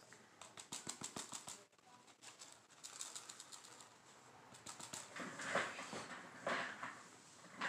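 Water sloshing and splashing as a plastic gold pan is dipped and swirled in a tub of muddy water. Runs of quick light patters come in the first few seconds, then louder swishes near the end.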